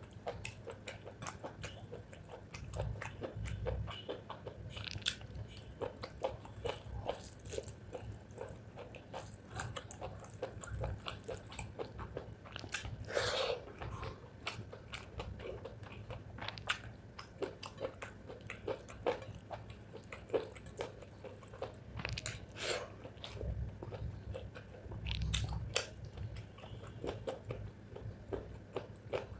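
Close-miked chewing and biting of chicken gizzard with rice: a steady run of small wet, crunchy clicks from the mouth, with one louder, longer noise about thirteen seconds in.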